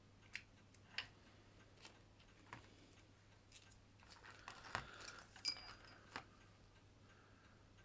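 Faint, scattered clicks and light metallic taps from small watchmaker's screwdrivers and watch parts being handled, one about five and a half seconds in ringing briefly and high.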